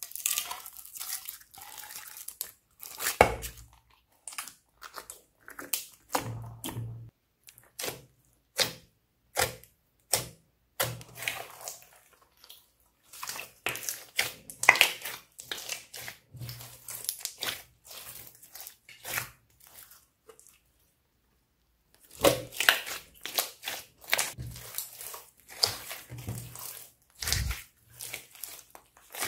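Slime being squeezed and kneaded by hand: irregular sticky crackles, pops and squelches, with a short pause about twenty seconds in.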